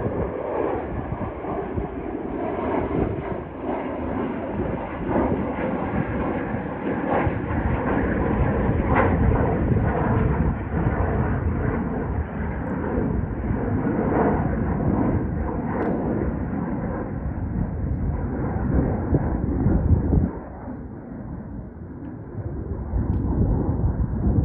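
Gulfstream G550 business jet climbing away after takeoff: its two Rolls-Royce BR710 turbofans give a steady, deep rumble with crackle. The sound grows duller as the jet recedes and drops suddenly in level near the end before swelling again.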